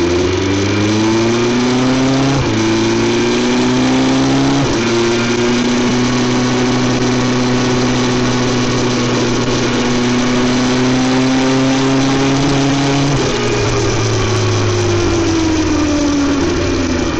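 BMW S 1000 XR inline-four engine through an Akrapovic exhaust under way. It accelerates with quick upshifts about two and a half and five seconds in, holds a steady note for several seconds, then the pitch falls as the throttle is rolled off and the bike slows.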